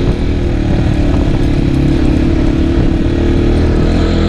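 Motorcycle engine running at a steady speed while the bike rides along a dirt track.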